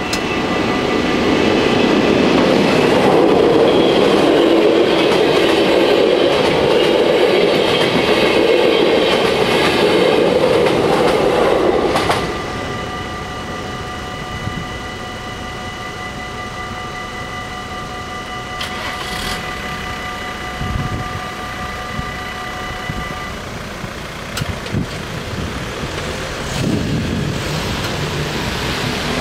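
A passenger train passes over an automatic half-barrier level crossing with its wheels clattering on the rails, while the crossing's warning bells ring steadily. The train noise cuts off about twelve seconds in. The bells keep ringing until a few seconds past the twenty-second mark, then stop as the crossing clears.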